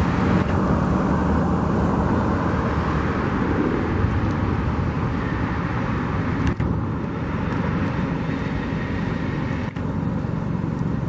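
Steady road-traffic noise, a continuous low rumble of vehicles, with two very brief dips in level in the second half.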